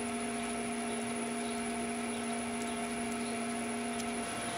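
TV-16 benchtop lathe running steadily with its chuck spinning, giving a constant motor-and-gearbox hum with a few steady tones in it.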